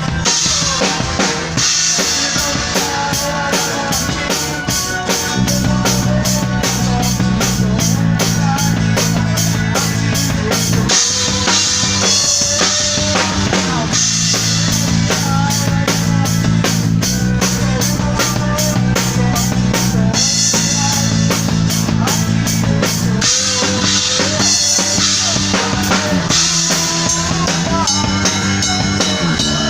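Live gospel band playing an upbeat song. A drum kit keeps a fast, steady beat with bass drum and snare over sustained low chords and a melody line.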